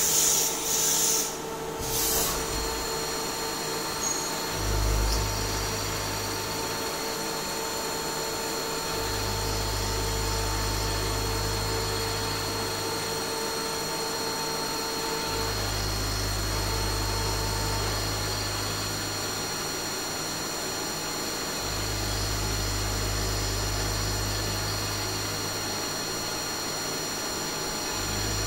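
Takisawa EX-510 CNC lathe running a hexagon-milling cycle on a screw head. A steady high whine runs throughout, with a short hiss about a second in and a low hum that switches on and off in stretches of a few seconds.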